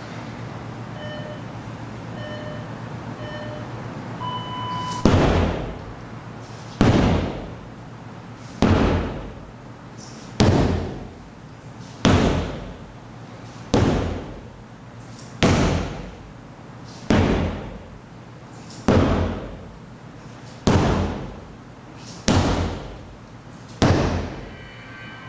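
Workout interval timer giving three short countdown beeps and a longer start beep, then a dozen sledgehammer blows landing steadily about every 1.7 seconds, each a loud thud with a short ringing tail.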